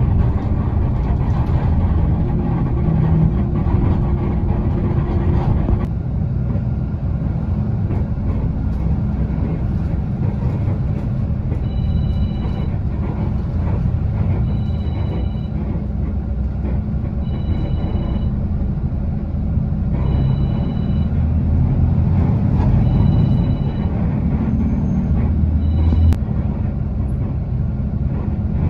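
Steady low rumble of a TransJakarta bus heard from inside the cabin while it drives. Through the middle of the stretch an electronic two-tone beep sounds six times, about once every two and a half seconds, the last one cut short by a click.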